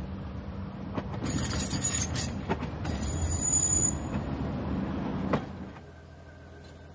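SNCV metre-gauge railcar AR 133 passing close by, its diesel engine, salvaged from a US Sherman tank, running with a low hum while the wheels squeal on the curve and clack a few times over the rail joints. About five and a half seconds in the sound drops to a fainter, duller running as the railcar is heard from much farther away.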